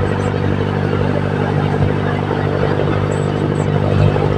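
Jeepney's diesel engine running steadily as it drives along, heard from inside the passenger cabin, with road and traffic noise.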